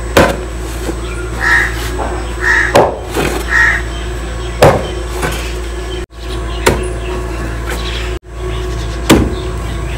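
Kahi (heavy digging hoe) striking and scraping hard-packed earth while a pit is dug, about five dull blows a second or two apart. Crows caw three times, about a second apart, in the first half.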